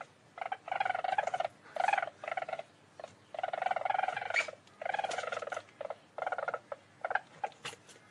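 Least weasel calling in a string of short, rapidly pulsed chattering trills, each under a second long with brief pauses between.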